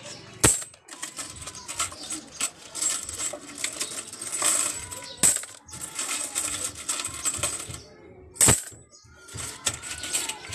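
Handfuls of coins clinking and jingling as they are scooped out of a coin box and dropped into a plastic basin already heaped with coins. Three louder clatters stand out: one near the start, one around the middle and one about two seconds before the end.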